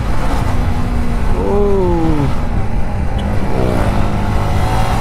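Single-cylinder sport motorcycle engine running under way over a steady low rushing noise. About a second and a half in, the revs drop in a long downward glide, then briefly rise and fall again near four seconds.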